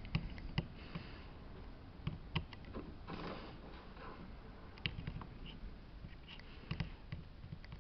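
Mostly quiet room with a few faint, sharp little clicks and taps scattered over several seconds and a soft hiss about three seconds in: small handling noises while a soldering iron is worked on the resistors of a circuit board.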